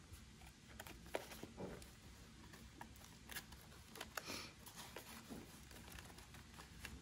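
Faint rustling and soft taps of card and paper being handled: die-cut paper pieces slid into a paper-bag pocket and flaps of a handmade journal turned over, a few sharper paper clicks among them.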